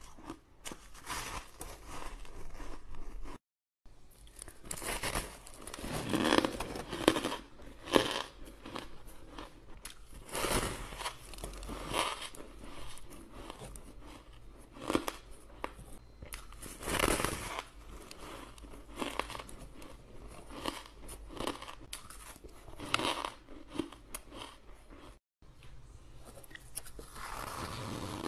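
Crisp, crunching bites into crumbly blocks of frozen purple ice, with chewing of the ice in between, the bites coming irregularly every second or two. The sound drops out briefly twice, about three seconds in and near the end.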